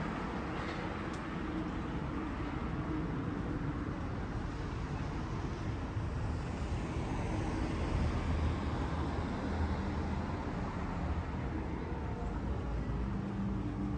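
Street ambience of road traffic: a steady wash of passing vehicles, with a low engine rumble swelling about eight seconds in.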